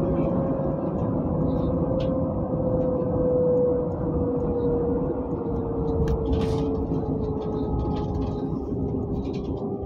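Inside a moving bus: steady engine and road rumble with a whine that slowly falls in pitch, plus a few faint rattles.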